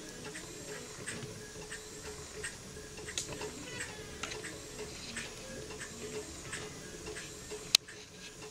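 Model beam engine running slowly on about 15 psi, its moving parts clicking in a steady, even rhythm of about one and a half ticks a second over a faint steady hum. One sharp, louder click near the end.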